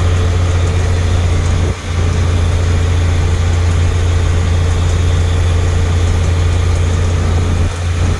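1982 International S1900 dump truck's DT466 inline-six diesel running steadily, with a strong low hum. It dips briefly twice, about two seconds in and again near the end. It is running smoothly, "like a top".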